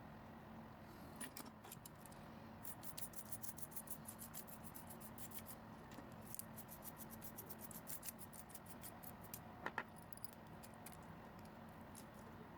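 Quick, light clicking and ticking of small hard parts being handled, busiest between about three and nine seconds in, with one sharper click near the end.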